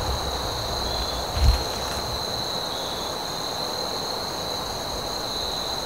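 Steady high-pitched chorus of crickets or katydids, two unbroken shrill tones with a few short chirps over it, and a brief low bump about one and a half seconds in.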